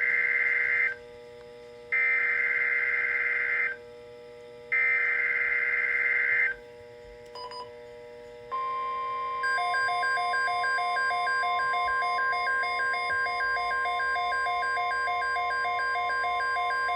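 NOAA Weather Radio SAME alert for a severe thunderstorm watch: three screechy digital data bursts of the header. After a short pause comes the long, steady 1050 Hz alert tone, lasting about nine seconds, with a pulsing beep over it.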